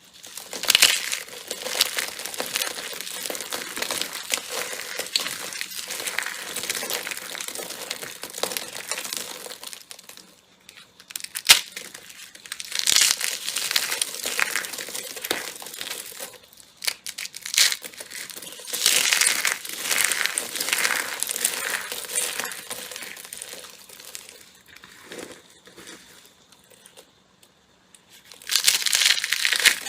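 Slime being squeezed, pressed and stretched by hand, giving off dense crackling in several bouts with short pauses between them.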